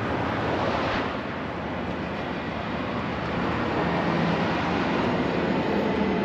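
Heavy rotator wrecker's diesel engine running steadily under load, driving the hydraulic boom and winch cables as a jackknifed semi trailer is lifted. The low drone grows a little louder about halfway through.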